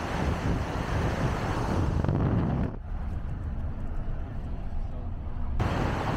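Car driving on a road: steady engine and tyre noise. It goes duller and quieter for about three seconds in the middle, then comes back to full.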